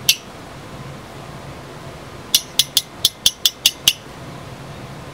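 PEX cinch-ring crimping tool ratcheting closed on a cinch ring on PEX pipe: one sharp click at the start, then a quick run of about eight sharp clicks, about five a second, a little over two seconds in, as the ring is squeezed tight. A faint low hum runs underneath.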